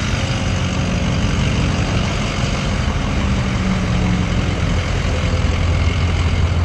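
Diesel pickup truck engines idling close by, a loud, steady low rumble that stays even throughout.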